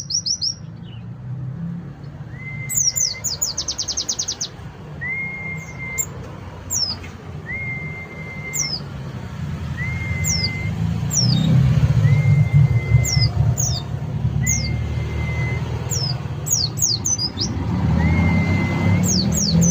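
Caged white-eye (pleci) singing: a series of short, high, downward chirps mixed with a flat whistled note repeated about every second and a half. A steady low rumble runs underneath.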